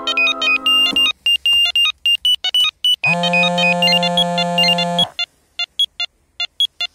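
Smartphone ringtone playing a melody: a sustained chord with a quick high tune over it, which drops out about a second in and comes back around three seconds. From about five seconds only short, separate high notes are left, and they cut off near the end as the call is about to be answered.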